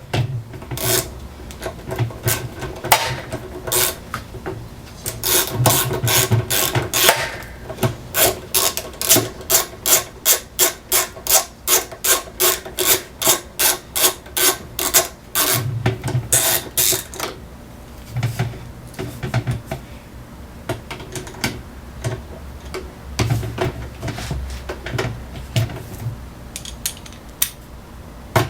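Hand-tool work on washing-machine parts: scattered scrapes and knocks, then a regular run of sharp ratchet-like strokes about three a second, from about 8 to 17 seconds in.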